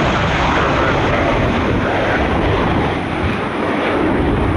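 Jet airliner engines running loud and steady as the plane passes, a broad rushing noise without a clear tone.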